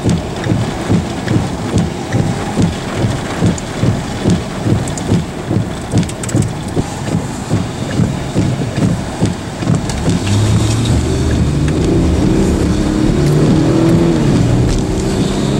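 Rain on a vehicle with a regular low thump about twice a second. About ten seconds in, the vehicle's engine picks up and revs higher as it accelerates away.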